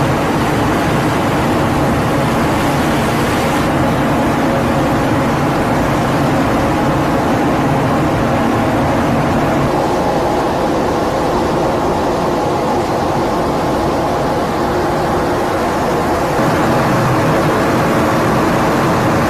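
Steady rumble of a ship underway at sea, with a hum of several steady tones over a hiss of wind and water.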